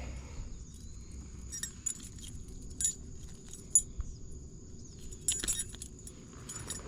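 Light metallic jingling and clicking of fishing tackle in a few short clusters, as a small bass is landed and handled in a kayak.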